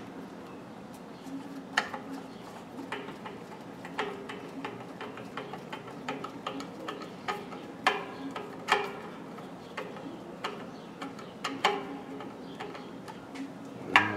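A screwdriver working the screws of an air compressor's pressure switch cover: irregular small clicks and taps, with a few sharper knocks.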